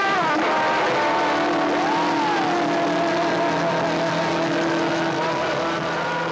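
A live rock band holds a sustained closing chord at the end of a song, with one lead note sliding up and back down about two seconds in, over a dense noisy wash. The sound starts to fade near the end.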